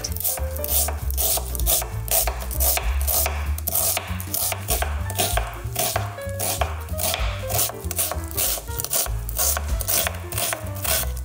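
A white-bladed ceramic knife dicing an onion on a wooden cutting board: a steady run of quick knife strikes against the board, over background music.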